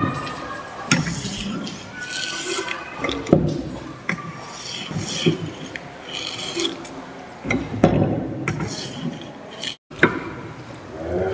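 Hand-cranked paper cutting machine being worked: its metal chain-and-sprocket drive and cutter linkage clank and scrape, a stroke about once a second.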